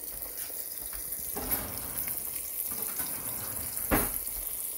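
Eggs frying in oil in a stainless steel pan: a steady sizzling hiss, with one sharp knock about four seconds in.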